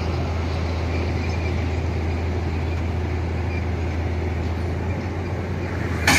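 Komatsu tracked excavator's diesel engine running steadily with a low hum as the machine crawls onto a lowboy trailer, with a single sharp knock just before the end.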